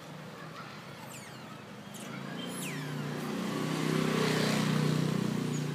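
A motor vehicle's engine approaching, growing louder from about two seconds in and loudest near the end. A few high falling chirps sound in the first three seconds.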